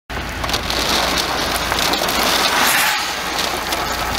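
Heavy rain and wind, with many sharp hits of drops and a low steady rumble underneath; it cuts in suddenly just after the start.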